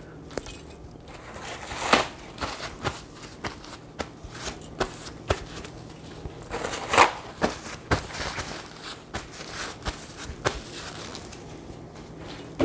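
Scattered light clicks and knocks with a few short rustling swishes, the sounds of hands and kitchen things being handled at a counter and sink.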